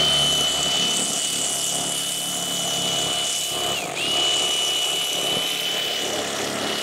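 Electric fillet knife running with a steady high whine as it slices a striped bass fillet off the skin. About four seconds in the motor cuts out for a moment, then starts again.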